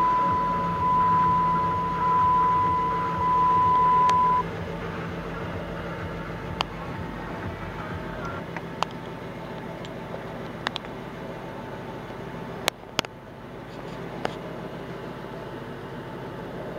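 2007 Dodge Charger police car's engine idling, heard from inside the cabin, with a steady high electronic warning tone that cuts off about four seconds in. After that come a few single sharp clicks.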